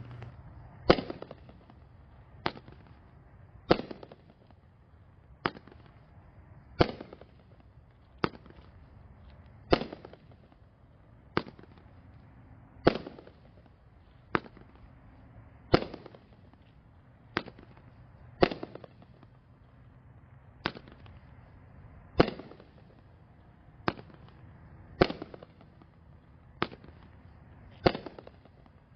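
Firehawk Homefront 500-gram firework cake, 20 one-inch tubes, firing its shots one after another. Each shot is a sharp report, coming evenly about every one and a half seconds.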